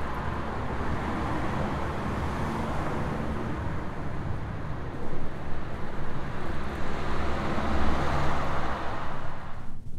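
Busy street traffic, with cars and a motorbike passing, recorded through a furry Cinela microphone windshield and mixed with low wind rumble from a 9 m/s wind test; the traffic mostly masks the wind noise. Just before the end the street sound cuts off, leaving only the low wind rumble.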